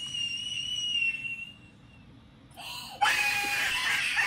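A thin, high-pitched wavering squeal in a person's voice that fades out about two seconds in, then, after a short pause, a loud, harsh shriek starting about three seconds in.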